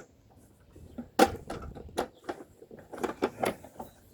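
Hard plastic parts of a suction pool cleaner being handled, a series of sharp knocks and clatters, the loudest about a second in.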